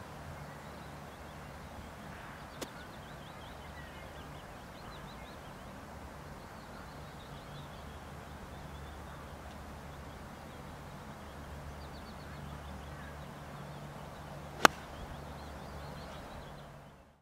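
One sharp, loud click of a Mizuno 46-degree pitching wedge striking a golf ball, near the end. Under it are a steady low outdoor background, faint bird chirps and a small tick earlier.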